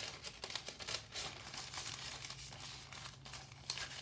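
Loose paper receipts, labels and tickets rustling and crinkling as they are fanned through and shuffled by hand, in short irregular crisp rustles.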